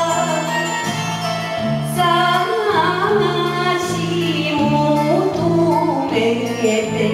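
A woman singing an enka ballad into a microphone over a karaoke backing track. Her voice slides and bends between held notes, over a bass line that pulses at an even pace.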